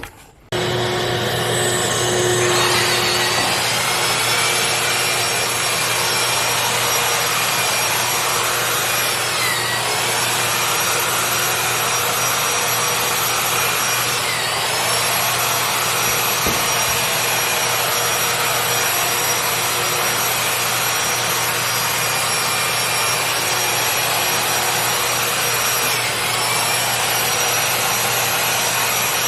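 Vacuum-assisted power drywall sander, with the shop vac that draws its dust, running as it sands spots on a drywall ceiling. It switches on just after the start and its whine climbs to a steady pitch over about two seconds, then sags briefly three times.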